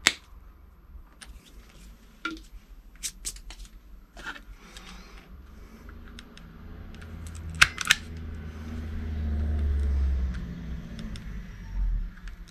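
Sharp clicks and clinks of small hand tools and wires being handled at a workbench, loudest at the very start and in a quick pair a little past the halfway point. A low rumble swells and fades in the second half.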